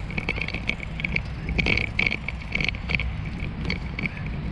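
Riding a bicycle along a paved path: a steady low rumble of wind on the microphone and rolling tyres, with irregular short high-pitched sounds on top.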